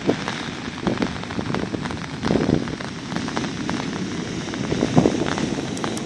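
Storm surf on the Black Sea, big waves breaking and washing up the beach in a steady rushing noise with many small clicks, swelling about two and five seconds in.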